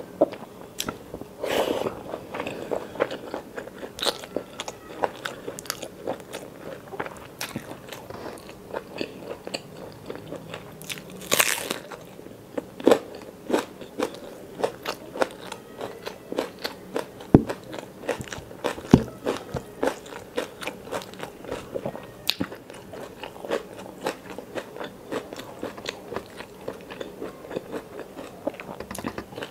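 Close-miked eating by hand: steady chewing and crunching of rice, chicken curry and raw red onion, with many small sharp clicks and a few louder crunches.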